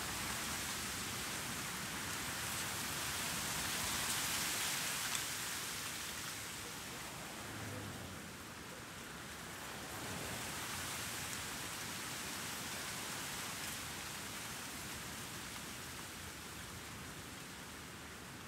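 Outdoor breeze, a steady hiss of moving air with faint city noise beneath it, swelling about four seconds in, easing around eight seconds, then rising again.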